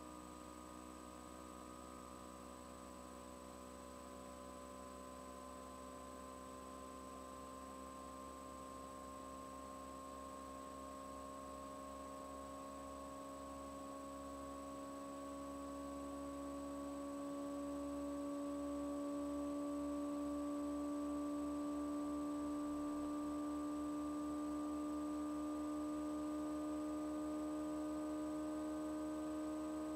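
Sustained droning hum of several steady tones together, slowly rising in pitch and swelling louder around the middle before holding steady.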